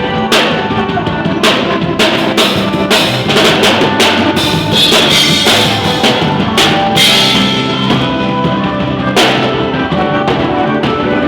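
Live band music with a drum kit: kick and snare hits and cymbals over sustained chords. The cymbals ring brightest about five to seven seconds in.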